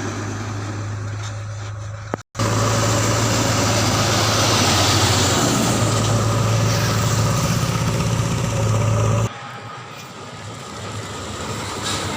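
Heavy diesel engine running steadily, with the sound cutting abruptly about two seconds in and dropping to a quieter engine sound about nine seconds in; it is loudest in between.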